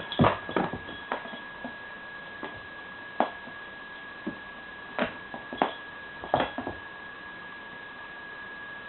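Scattered taps and knocks of a cat teaser toy and a cat's paws during play: a cluster near the start, then single knocks every second or so, stopping about two seconds before the end. A steady high-pitched whine runs under it all.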